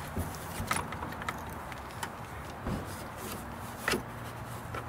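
Hitch bike rack (Hollywood Racks Destination E) being folded by hand: a series of separate clicks and knocks from its metal frame and plastic levers, with a duller thump about halfway and a sharper click near the end.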